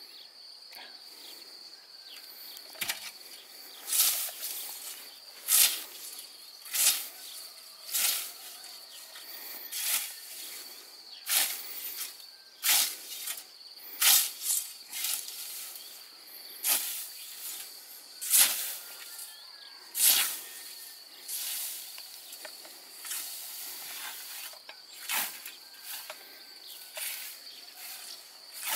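A scythe with a long wooden snath mowing tall grass by hand: its blade swishes through the stems in a steady rhythm, one swish every second or two.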